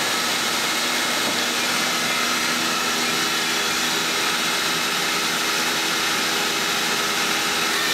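Okuma Multus B300 CNC lathe's live-tool spindle running at 2,500 RPM: a steady machine hum of several held tones over an even hiss.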